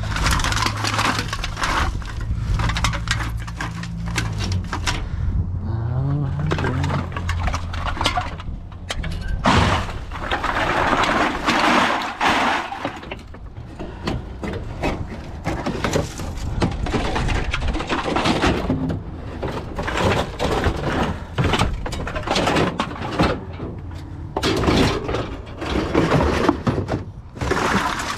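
Rummaging through trash in a dumpster: repeated clatter, knocks and rustling of items being moved and pulled out, with a low steady hum in the first few seconds.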